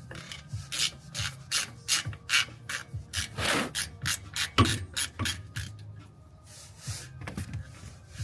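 Ratchet wrench worked back and forth in quick short strokes, each a rasping ratchet click-run, about two to three a second, loosening the fill plug on a 2021 Jeep Wrangler's differential. The strokes stop about five seconds in, with a couple more near the end.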